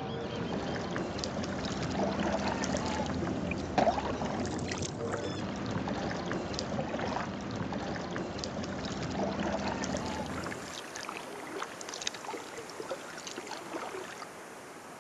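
Water splashing and swishing around a Kolibri folding kayak paddled across a choppy lake, with a strong steady rush under it and paddle strokes coming every second or two. About ten seconds in the rush drops away, leaving quieter lapping and small drips and splashes.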